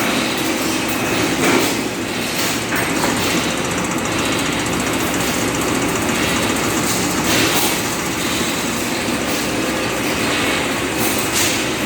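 Carrageenan capsule-making machine running with a steady mechanical clatter and a few sharper clacks.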